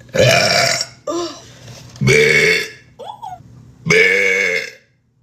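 A woman burping loudly three times, about two seconds apart, each burp lasting well under a second.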